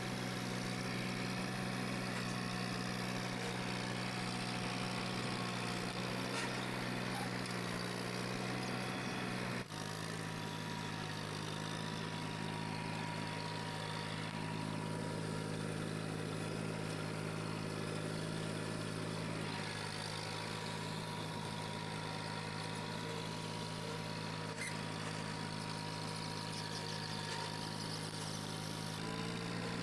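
Old Massey Ferguson tractor engine running steadily while pulling a plough. About ten seconds in, the pitch drops slightly at once. Near the end the engine note rises.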